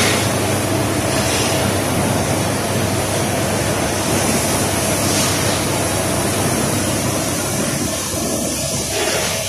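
Industrial tunnel conveyor dryer running: a steady rush of air with a low hum and a faint steady tone under it, easing a little near the end.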